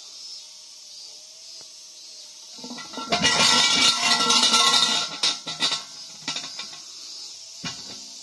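Large shrine bell (suzu) shaken by its hanging rope: a loud metallic jangling rattle for about three seconds, then a single sharp knock near the end, over a steady high buzz of insects.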